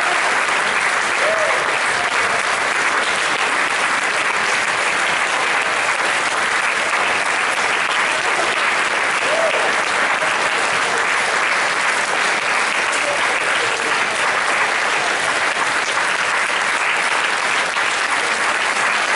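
Audience applauding steadily, a sustained round of clapping filling a concert hall.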